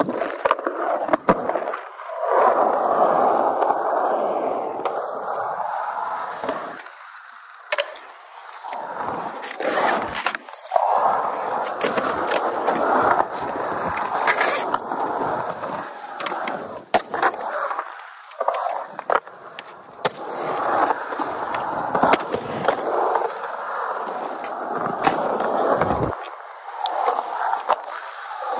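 Skateboard wheels rolling on the concrete of a skatepark, the rumble swelling and fading as the rider rides the transitions. It is broken many times by sharp clacks from pops, landings and trucks striking the coping.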